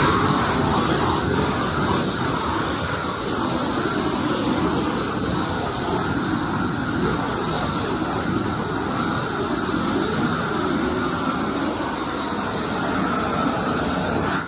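Shrink-wrap heat gun running, a steady loud rushing blast of flame and air as loose shrink film is heated to pull it tight; it cuts off suddenly near the end.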